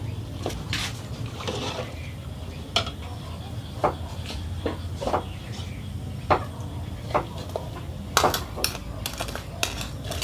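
A metal ladle clinking against a cooking pot and a bowl while seasoning is scooped and stirred into the broth. There are scattered single clinks, then a quick run of them near the end, over a steady low hum.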